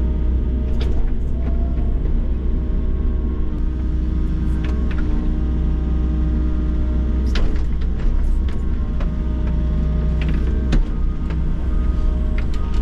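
Volvo excavator's diesel engine and hydraulics running steadily under digging load, heard from inside the cab as a deep hum with a hydraulic whine that shifts a little in pitch. A few sharp knocks sound now and then as the bucket works the soil.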